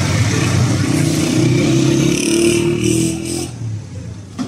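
Small engine of an auto-rickshaw running as it passes close by amid street traffic, dying away about three and a half seconds in.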